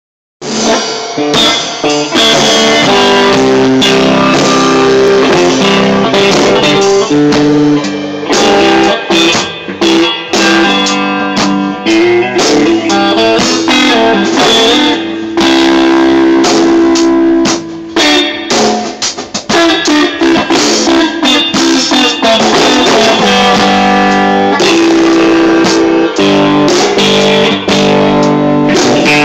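A live band jamming loudly: guitar playing chords and riffs over a drum kit, with sharp drum hits all through.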